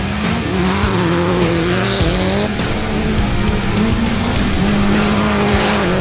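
Class 10 off-road race buggy engine revving hard under load, its pitch rising and falling with the throttle, with rock music playing over it.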